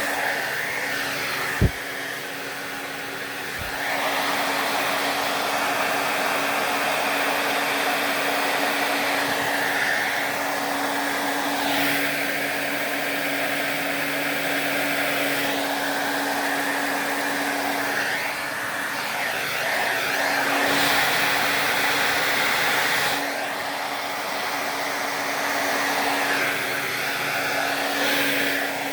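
Handheld hair dryer running steadily, its airflow rising and falling in tone every few seconds as it is swept over wet poured paint. A single sharp knock about two seconds in.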